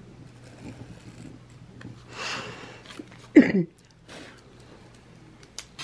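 A soft rustle about two seconds in, then a short throaty sound from a person's voice, falling in pitch, about three and a half seconds in, and a few light clicks near the end.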